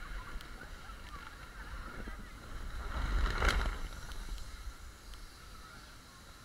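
Wind rumbling on the microphone, with the rustle and squeaky rub of a body clambering over an inflatable's PVC vinyl, loudest about three seconds in.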